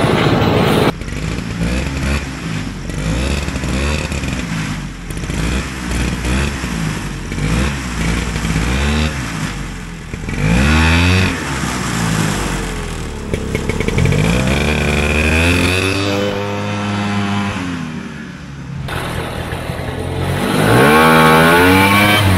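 Single-cylinder two-stroke JLO engine of a vintage AMF Ski Daddler snowmobile running under load as the sled is ridden, its pitch rising and falling again and again as the throttle is opened and backed off.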